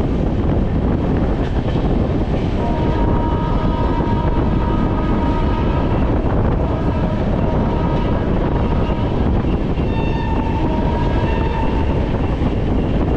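Passenger train running past a station platform, heard from beside the coach: a steady loud rumble of the moving train. From a few seconds in to near the end a high steady tone with overtones sounds on and off over it.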